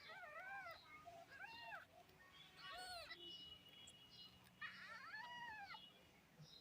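A kitten meowing: several short, high-pitched meows that rise and fall in pitch, then a longer meow about four and a half seconds in.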